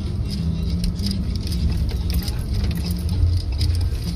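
Car interior noise while driving over a rough, bumpy road: a steady low rumble of tyres and engine, with light rattles and clicks from inside the car.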